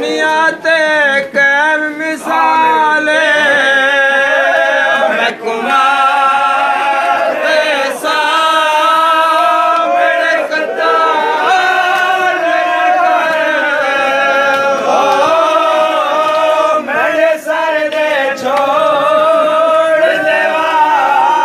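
Men's voices chanting a noha together, a Shia mourning lament for Imam Hussain, in long held, gently wavering notes.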